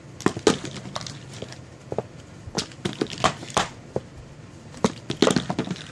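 Plastic fidget sticks tapping and clattering on cardboard brick blocks as they are flicked and flipped: about a dozen sharp, irregular clicks and knocks.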